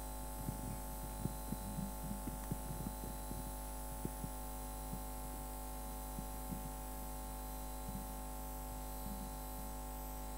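Steady electrical mains hum from the sound system, with faint scattered low knocks and rustles, more of them in the first half.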